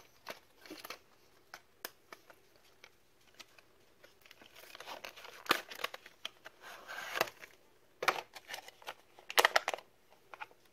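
Small cardboard retail box being opened and its plastic packaging tray pulled out and handled: irregular crinkling and tearing rustles with sharp clicks, in scattered bursts that are busiest in the second half.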